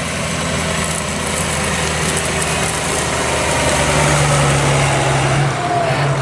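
Diesel engine of farm machinery running steadily, its note getting a little stronger from about four seconds in and easing back near the end.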